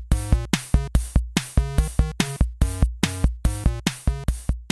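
Background music with a steady beat: short pitched notes over a low thump, about four a second.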